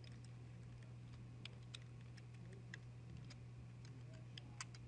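Faint computer keyboard typing: scattered, irregular key clicks over a steady low electrical hum.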